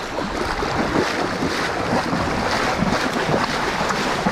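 Sea water washing and splashing in a steady rushing wash, with wind rumbling on the microphone.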